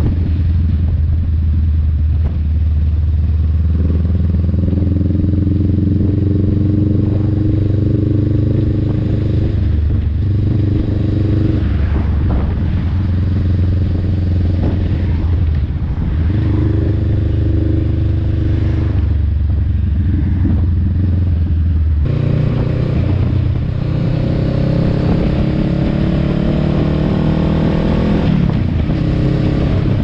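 Honda Rebel 500 parallel-twin engine running through a Vance and Hines slip-on exhaust while the bike is ridden. The note holds fairly steady with a few brief breaks, then in the last third climbs steadily in pitch as the bike accelerates and drops back near the end.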